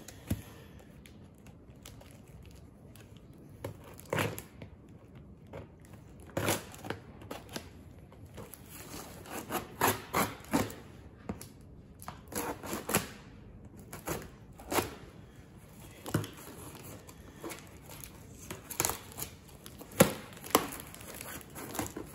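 Cardboard shipping box being opened by hand: packing tape and cardboard tearing and crinkling in irregular bursts, with knocks as the box is handled.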